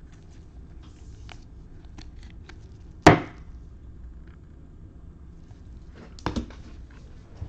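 A sharp knock on a hard surface about three seconds in, then two quick knocks near the end, with faint clicks and rustles of handled cards between.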